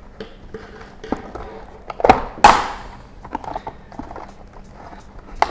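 Cheek pad of an open-face motorcycle helmet being pulled out by hand: padding and fabric rustle, with sharp snaps of its snap buttons coming loose, two close together about two seconds in and a louder one just after.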